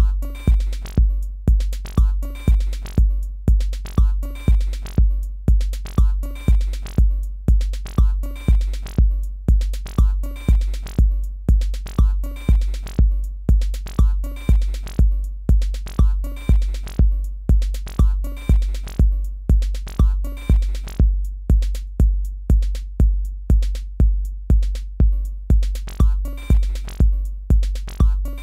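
Patterning drum machine app looping an electronic drum pattern: a deep kick on every beat, about two a second, with snare, closed hi-hat and percussion sample hits between.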